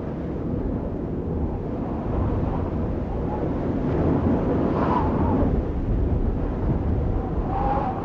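Low, steady wind-like rumbling drone of an end-card sound effect, with a faint wavering tone rising out of it about five seconds in and again near the end.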